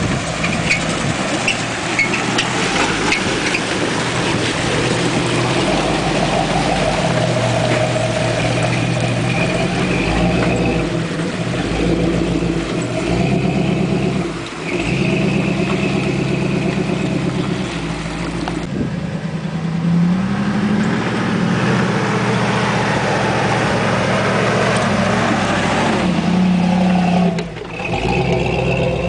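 A 1974 Jeep Cherokee's carbureted AMC 401 V8 running at a raised idle and revving under load off-road, rising in pitch about twenty seconds in. A high squeak comes and goes over it, from a front bumper left loose by a missing bolt.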